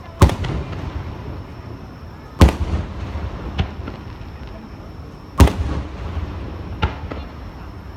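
Aerial fireworks shells bursting overhead: three loud booms two to three seconds apart, each trailing off in a rumble, with two smaller bangs between them.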